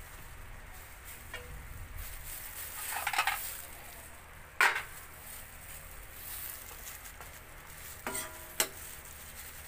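Metal lid lifted off a stainless steel wok, then a metal utensil stirring braised pork belly in the wok, knocking and scraping against its sides. A handful of sharp metal clanks, the loudest about halfway through and two with a short ring near the end.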